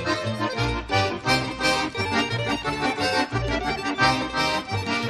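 Background music led by an accordion, with a bouncy bass line keeping a steady beat.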